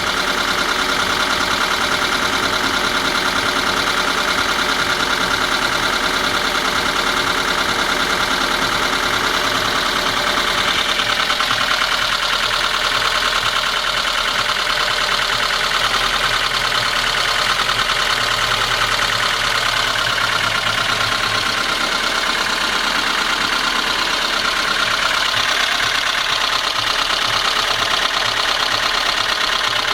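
VAZ-21213 Lada Niva 1.7-litre four-cylinder engine idling steadily with a rapid, regular knock from inside the engine; the cause of the knock is unknown to the owner.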